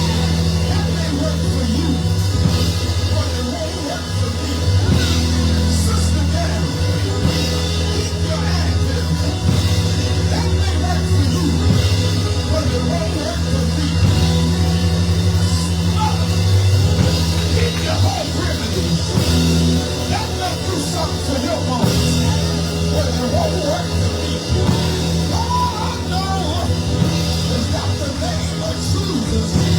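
Live church band music, loud and steady, with held bass notes, drums, and voices singing over it.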